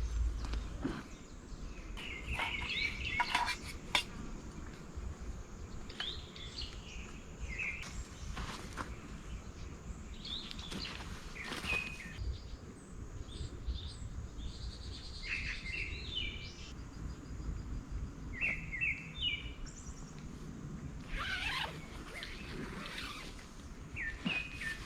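Small birds chirping and trilling on and off over a low outdoor background rumble, with a few sharp clicks and knocks.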